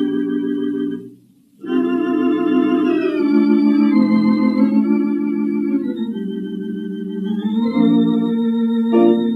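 Wurlitzer theatre organ playing sustained chords, breaking off for a moment about a second in before going on. Near the end it settles onto a long held chord with a few short notes struck over it.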